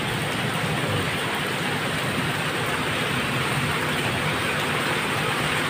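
Heavy rain pouring down steadily, an even hiss with no breaks.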